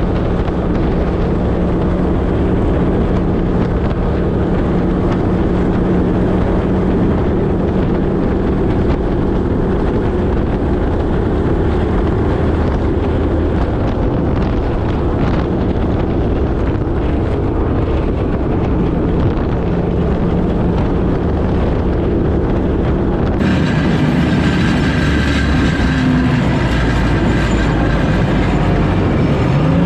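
Military vehicle under way: its engine runs steadily under a heavy, constant rumble. The sound turns brighter about 23 seconds in, and the engine revs up right at the end.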